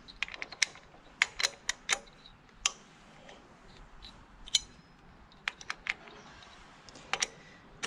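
Metal hand tools and small parts clinking and clicking irregularly as they are handled and set down, a few strikes ringing briefly.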